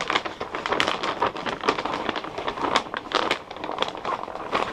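Clear plastic vacuum-sealer bag crinkling and crackling in irregular bursts as it is handled and shifted around the rifle inside it.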